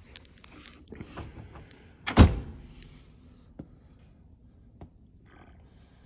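One loud, sharp thunk about two seconds in. It is followed by a few faint clicks as the buttons on a Fisher & Paykel dishwasher drawer's stainless control panel are pressed to start a wash.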